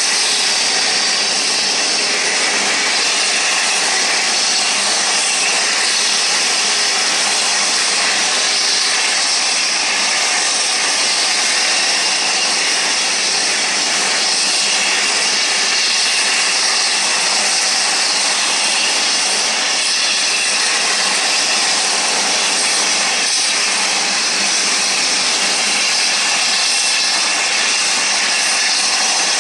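Airbus A380-841's Rolls-Royce Trent 970 turbofan engines running steadily at idle after start-up: a constant, even, high-pitched rushing whine that does not change.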